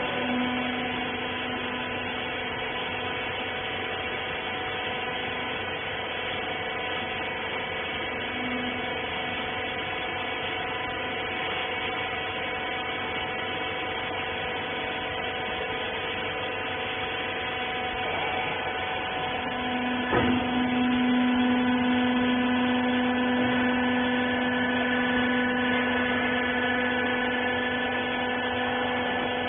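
Hydraulic textile baler's pump motor running with a steady hum. About twenty seconds in there is a click, and the hum then gets louder.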